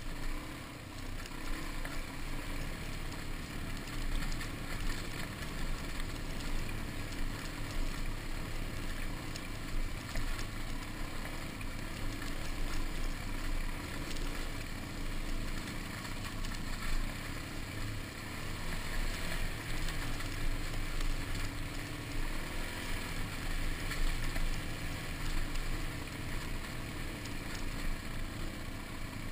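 Suzuki DR-Z dirt bike's single-cylinder four-stroke engine running as the bike rides along a rough dirt track, the engine note steady with small surges and a constant rushing noise over it.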